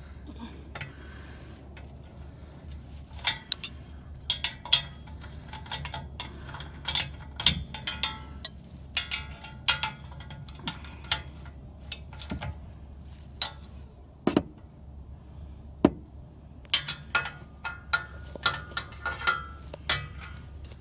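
Irregular sharp metallic clinks and knocks of hand tools and exhaust parts being worked on, in clusters, over a steady low hum.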